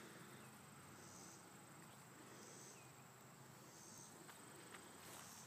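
Near silence outdoors, with a faint insect chorus: a steady high trill and a soft chirp repeating about every second and a half. A few faint ticks come near the end.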